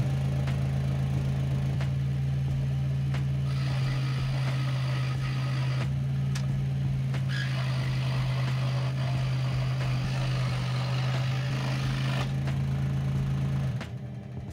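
Benchtop scroll saw running with a steady hum, its blade cutting a samba (obeche) wood blank from about three seconds in until about two seconds before the end, with a short break in the cut around the middle. The motor stops shortly before the end.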